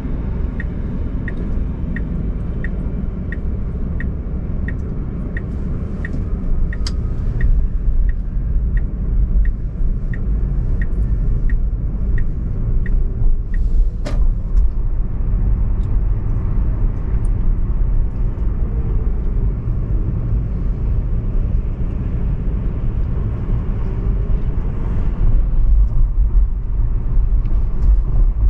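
Car driving through city streets, heard from inside as a steady low road-and-engine rumble. A turn-signal indicator ticks about one and a half times a second, then stops about halfway through. A single sharp click comes just after.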